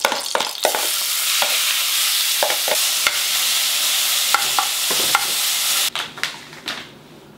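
Marinated ruffed grouse pieces sizzling in hot oil in a frying pan as they are sautéed over high heat, with clicks and scrapes of a spoon stirring against the pan. The sizzle cuts off abruptly about six seconds in.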